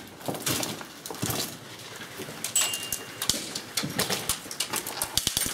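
Irregular footsteps crunching and scuffing on a debris-strewn concrete floor, with scattered clicks and knocks of gear, and a brief high beep a little before the middle.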